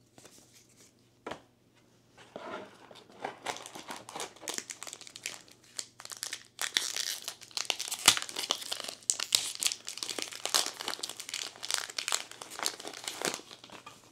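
Foil trading-card booster pack being crinkled and torn open by hand: a long run of sharp crackles and rips, with one louder snap about eight seconds in.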